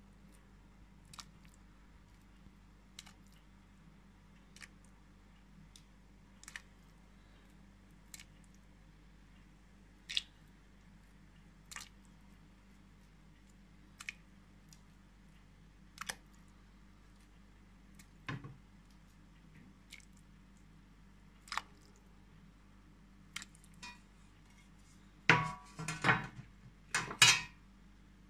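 Raw meatballs dropped one at a time into hot water in a Philips multicooker's bowl: a short plop about every couple of seconds. Near the end, a louder clatter of several knocks against the bowl.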